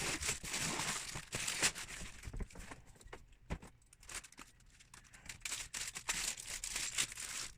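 Plastic parts bags full of Lego pieces being handled and sorted, crinkling, with small clicks and rattles of the bricks inside. The handling goes quiet for a couple of seconds midway, then resumes.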